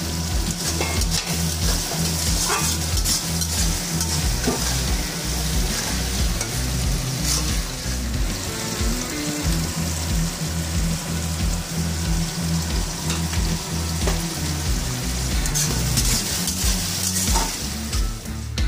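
Chopped onions and capsicum sizzling in hot oil in a metal kadai, with a spatula clicking and scraping against the pan as they are stirred.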